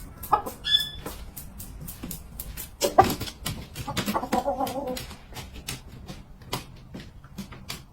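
A rooster gives one wavering call lasting about a second, about four seconds in, amid a run of sharp clicks and taps.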